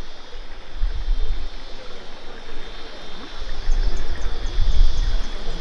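Wind gusting on the microphone in uneven low rumbles, over a steady high-pitched hiss.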